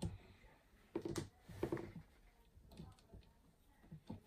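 Faint metal clicks and knocks as a steel milling attachment is handled and seated on a lathe's cross slide. There is a knock at the start, a few more about one to two seconds in, and another near the end.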